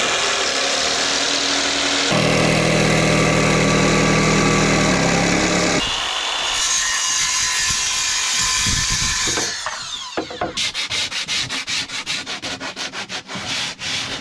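A motor-driven tool runs steadily for about ten seconds, its pitch shifting a couple of times, then gives way to quick, even back-and-forth rubbing strokes, about four or five a second, like sanding or sawing wood by hand.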